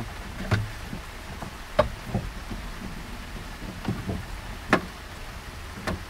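Scattered sharp plastic clicks and knocks from a loose interior quarter trim panel and seat belt being handled, about five in all with the loudest near the end, over a steady hiss of rain.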